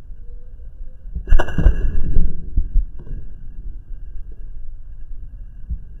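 Slingshot fired at a bird in a tree. About a second in there is a sharp snap of the released bands, followed by a brief ringing twang, and a smaller click about two seconds later.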